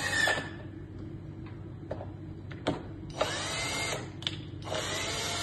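Cordless screwdriver turning a BMW E39 xenon headlight's beam-adjuster screw, running in short bursts that each speed up and slow down, with a few light clicks between. The screw is driving the beam up and down to test the repaired adjustment mechanism.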